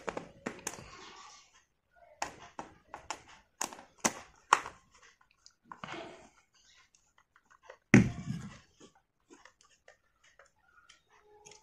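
Screwdriver turning screws into the metal end cover of an electric air-horn compressor motor: scattered metal clicks and scrapes, with one louder knock about eight seconds in.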